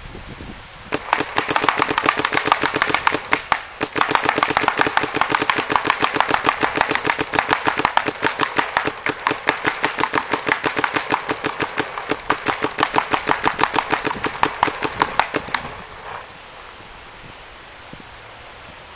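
Planet Eclipse Gmek mechanical paintball marker, running on compressed air, fired rapidly by hand on its slide trigger: a long fast string of sharp pops with a brief pause about three and a half seconds in, stopping about fifteen seconds in.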